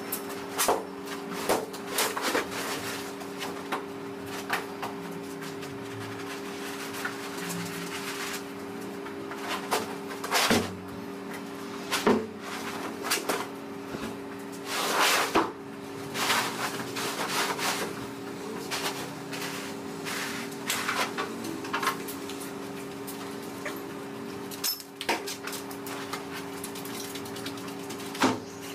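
Irregular knocks, thumps and scuffs of carpet and underlay rolls being handled and dropped on the floor, over a steady two-tone hum.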